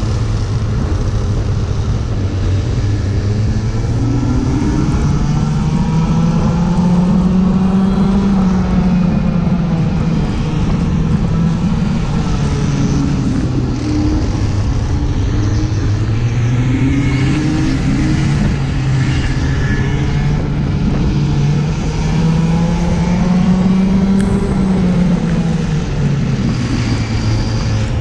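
Racing go-karts running at race pace. The loudest engine's pitch climbs and drops again every few seconds, and other karts' engines run close by.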